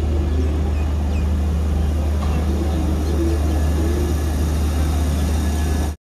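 Steady low hum and rumble of a Vande Bharat electric train set at a station platform, with faint voices in the background. The sound cuts off abruptly at the end.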